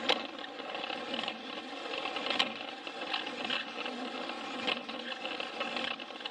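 Plarail battery-powered toy train running on plastic track, heard from on board: a steady whir and rattle from its small gear motor. Sharp clicks come about every two seconds as it runs along the track.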